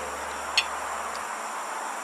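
Steady outdoor background hiss, with a single sharp light click about half a second in; a faint low hum cuts off a little after a second in.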